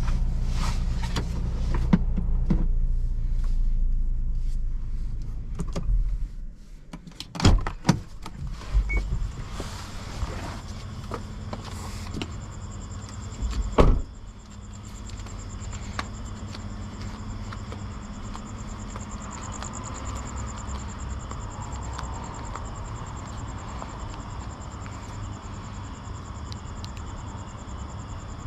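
Low rumble of the Toyota Fortuner's 2.7-litre petrol engine and running gear, which drops away about six seconds in. A few sharp clicks and knocks follow, then a single heavy thump near the middle. After that, insects chirp steadily in a fine, rapid pulse.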